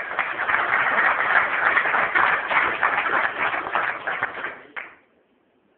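Audience applauding, a dense run of many hand claps that stops suddenly near the end.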